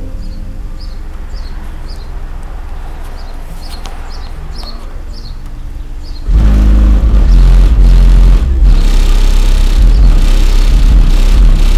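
Birds chirping over a low background rumble, then about six seconds in a very loud, deep, bass-heavy noise cuts in suddenly and keeps going: the neighbour's car-wash noise.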